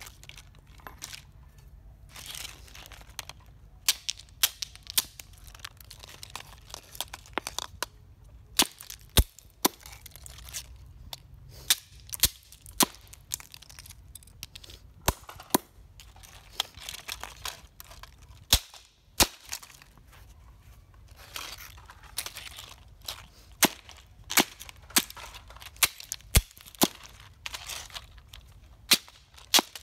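A hard plastic toy truck being broken apart with hands and a hammer on concrete: many sharp, irregular cracks and knocks as the plastic snaps and is struck. Between them, crackly scraping and rattling of plastic pieces being handled.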